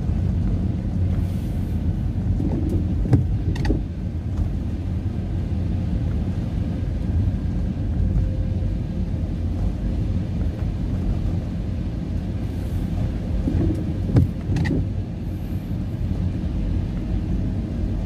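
Car driving on a wet road: a steady low rumble of engine and tyres, with two sharp knocks, one about three seconds in and one about fourteen seconds in.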